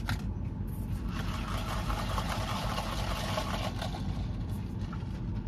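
Steady low rumble of a car idling, heard from inside the cabin, with a broad hiss that swells about a second in and fades out around four seconds in.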